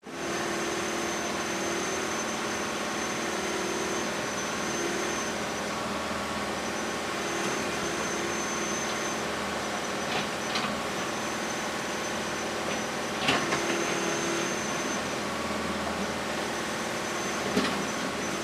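Heavy construction machinery working: a steady engine drone with a thin high whine that drops out now and then, and a few sharp knocks in the second half.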